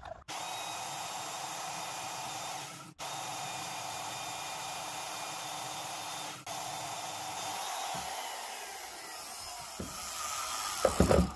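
Freshly refurbished Porter-Cable 7724 PortaBand portable metal bandsaw running and cutting through a metal bar held in a vise: a steady whine with hiss, broken twice for an instant. After about eight seconds the motor winds down with falling pitch, and a few knocks come near the end.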